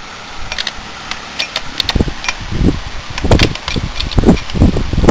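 Light metallic clicks and taps of steel transaxle gears being worked into mesh by hand in an aluminium case. From about two seconds in, a low rumbling noise comes and goes in gusts.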